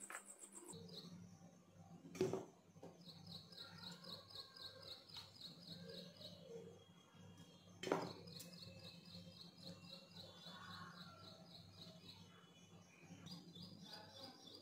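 Faint bird chirping: long runs of rapid, evenly repeated high chirps. Two sharp knocks, about six seconds apart, stand out as the loudest sounds.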